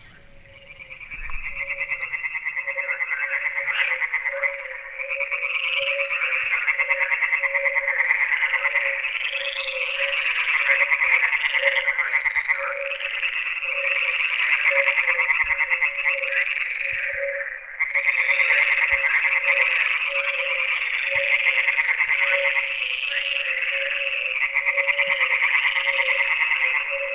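A dense chorus of many frogs calling, with fast rasping pulses that overlap continuously and a separate, lower repeated note pulsing steadily underneath. The chorus swells in about a second after near quiet.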